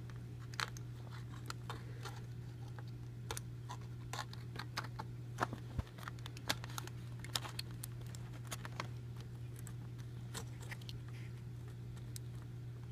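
Aluminum foil crinkling and crackling in faint, irregular small clicks as it is pressed down and scored with a knife over a die-cast car body. A steady low hum runs underneath.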